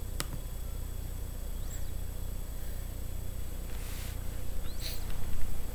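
Steady low hum with faint hiss, the background noise of a recording. There is a click right at the start and a few faint, short high chirps.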